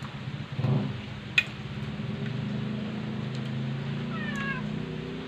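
A cat meowing in one long, drawn-out call, with a sharp click about a second and a half in.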